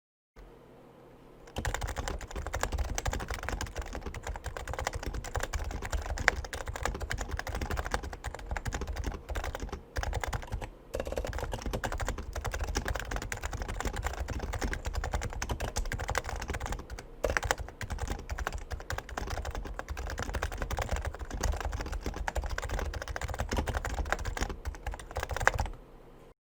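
Fast continuous typing on a Topre-style electrostatic capacitive keyboard (rubber-dome keys over springs), a dense stream of muffled keystrokes with brief pauses twice. It starts about a second and a half in and stops shortly before the end.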